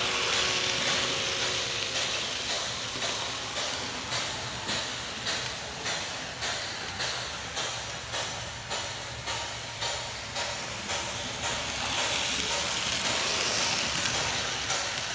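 Steam locomotive running: even exhaust chuffs about two a second over a steady hiss, with a chord-like whistle dying away in the first second or two.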